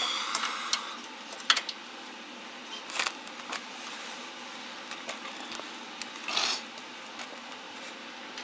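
Scattered clicks and knocks, with a short rustle a little after six seconds in, as arc-welding gear is handled: electrode holder and cable, gloves and welding helmet. The loudest is a sharp click about a second and a half in, over a faint steady hum.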